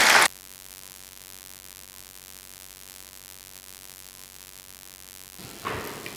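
Applause that cuts off abruptly a moment in, leaving a steady faint hiss with a low hum from the sound feed. Near the end a louder noisy sound comes back in.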